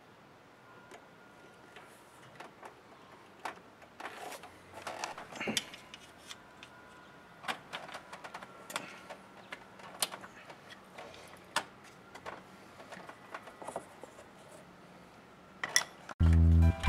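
Scattered light clicks, taps and clatters of hand tools and metal and plastic engine parts being handled under the hood. Near the end, loud music cuts in abruptly.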